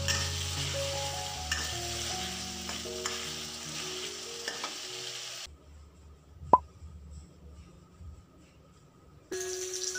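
Chillies and chicken sizzling in oil in a wok while a metal spatula stirs and scrapes them, with background music. About five and a half seconds in, the sizzling cuts off to near quiet, broken once by a short, sharp rising blip, the loudest sound here; sound returns near the end.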